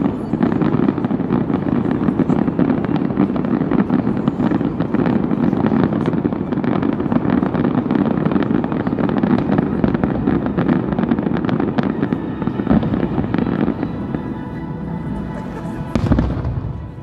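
A fireworks salute with many shells bursting at once in a dense, continuous crackle. The crackle dies down about three-quarters of the way through, then one last loud bang comes near the end.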